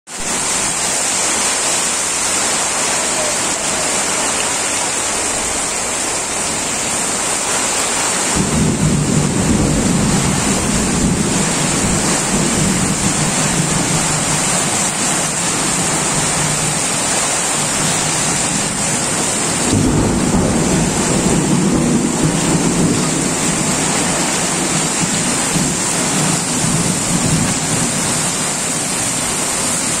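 Heavy storm rain pouring steadily onto corrugated tin roofs and a flooded street, a loud even hiss. A deeper low rumble swells in about eight seconds in and again near twenty seconds, over the rain.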